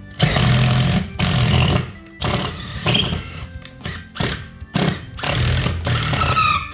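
A power tool running in repeated bursts of about a second each, over background music.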